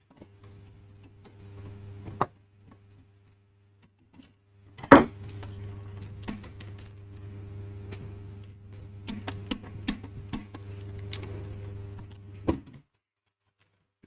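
Clicks and knocks of small parts being handled during bench disassembly, one sharp knock about five seconds in, over a steady low hum that cuts off suddenly near the end.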